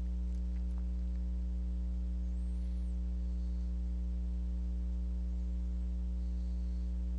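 Steady electrical mains hum picked up by the recording setup, a low, unchanging hum with a stack of fainter higher tones above it.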